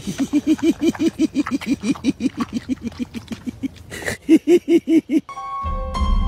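A person laughing in a long run of quick, even pulses, louder for a moment about four seconds in. Piano music starts near the end.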